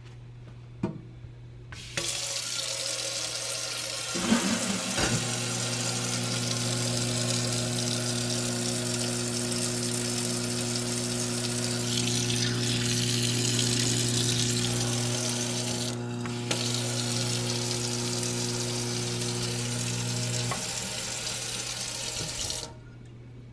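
Kitchen tap running hard into the sink, starting about two seconds in and shut off near the end. About four seconds in, a newly installed garbage disposal starts with a brief clatter and runs with a quiet, steady low hum, stopping a couple of seconds before the water.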